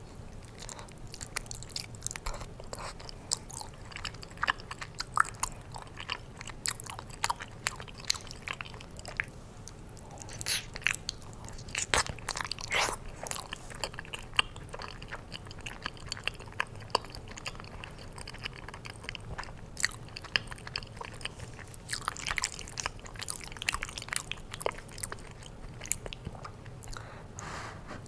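Close-miked eating of lasagna: wet chewing, mouth clicks and smacks, with louder stretches of biting and crunching every several seconds.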